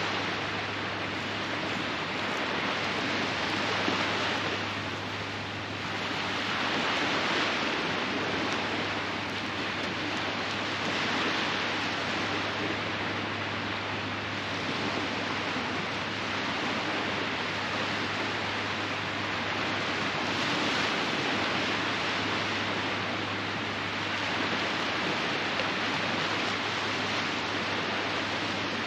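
Surf washing onto a sandy beach: a steady hiss that swells and fades every few seconds as waves break.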